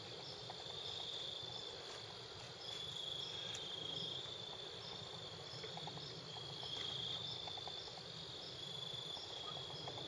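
Crickets trilling in the background: a high, thin trill that comes and goes in stretches of about a second.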